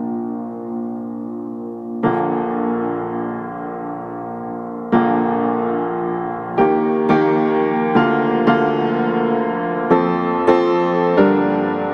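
Background music: slow piano, sustained chords with single notes struck more often in the second half.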